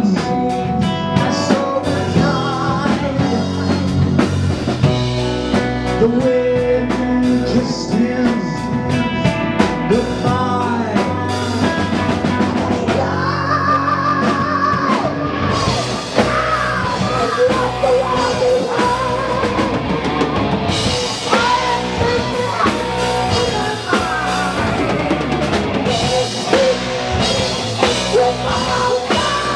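Live heavy metal band playing: distorted electric guitars and a drum kit under a man singing.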